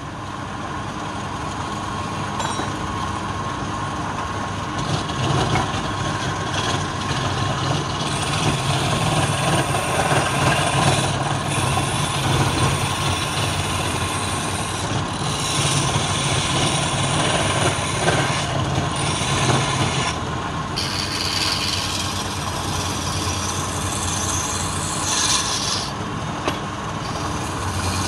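Wood lathe motor running with a steady hum while a hand-held turning chisel cuts a spinning wooden spindle, giving a rasping, scraping cutting noise that swells and eases as the tool bites in, with a couple of short breaks.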